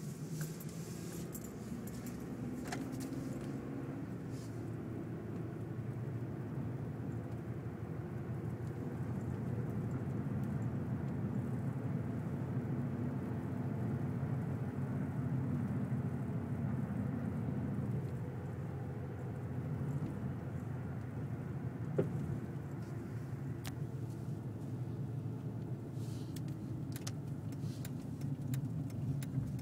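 Car engine and tyre noise heard from inside the cabin while driving, a steady low rumble with scattered light clicks and rattles. One sharper click comes about three quarters of the way through.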